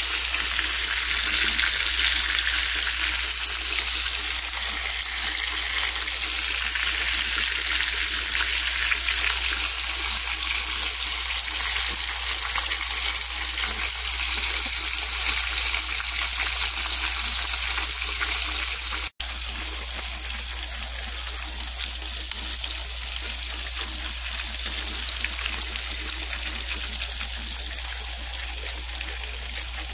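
Hot oil sizzling steadily around breaded fillets frying in a pan. The sizzle breaks off for an instant about two-thirds of the way through and continues slightly quieter.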